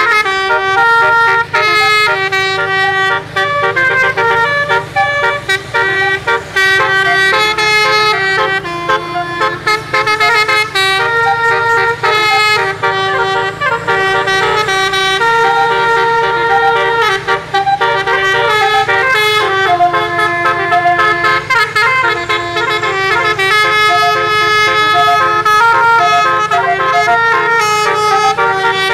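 Bus telolet horn, a set of roof-mounted trumpet horns, playing a continuous melody of stepped notes with several horns sounding together. A steady low hum runs underneath.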